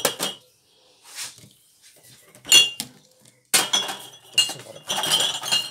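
Small glass jars clinking as they are picked up and set down, with a sharp clink about two and a half seconds in. Through the second half, a metal ladle scrapes and clangs against a stainless steel pot of hot elderberry jelly, the pot ringing.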